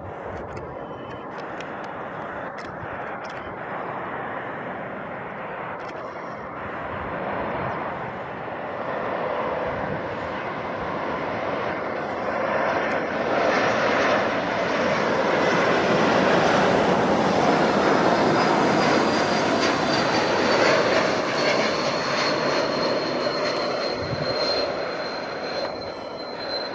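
Airbus A220-300's Pratt & Whitney PW1500G geared turbofan engines on final approach: steady jet noise that swells as the airliner passes close, loudest about two-thirds through. A high whine slides slowly down in pitch in the second half as the aircraft goes by.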